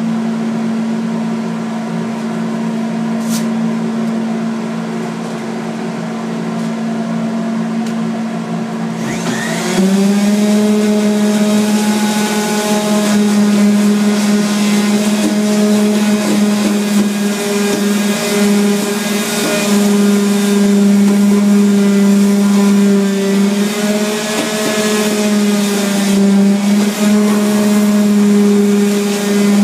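A steady machine hum, then about nine seconds in an electric orbital sander spins up and runs against the countertop with a steady whir and hiss, its pitch wavering a little as it is pressed and moved. It is sanding the dried repair on the countertop before refinishing.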